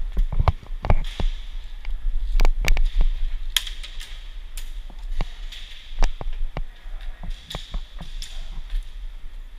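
Scattered sharp clicks and snaps of airsoft guns firing and BBs striking the plywood walls around an indoor arena, with a few low knocks of footsteps and gear handling about half a second to a second in.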